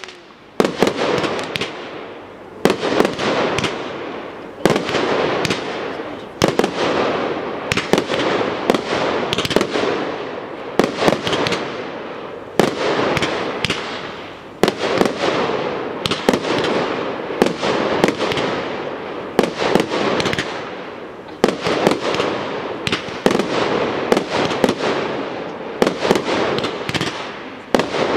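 Aerial fireworks display: shells bursting one after another, a sharp bang roughly every one to two seconds, often in quick clusters, each followed by a fading wash of sound.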